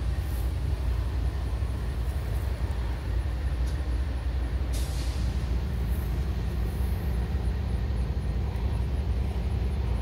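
CSX diesel-electric freight locomotive idling with a steady low rumble, with a brief air hiss about five seconds in.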